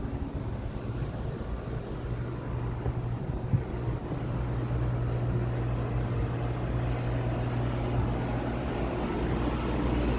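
Steady low mechanical hum that grows gradually louder.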